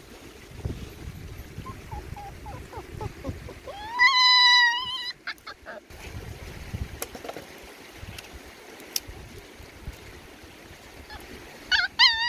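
Puppy whining: a few small whimpers, then one loud high whine lasting about a second about four seconds in. Near the end comes a quick run of short, falling yelping whimpers.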